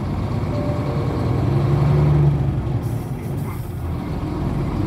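Hino Blue Ribbon city bus engine running, heard from inside the passenger cabin. The engine note grows louder to about two seconds in, then drops, and a short hiss of air follows about three seconds in.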